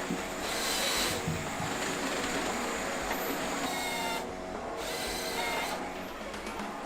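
Rottne forestry harvester at work with its SP761LF harvester head: steady engine and hydraulic noise, with a few short whining tones that slide downward.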